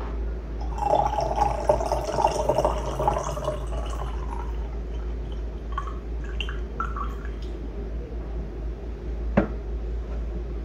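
Water pouring from the spout of a small zisha clay teapot into a glass pitcher: a steady stream for a few seconds that then tapers off into scattered drips. Near the end comes a single sharp knock as the teapot is set down.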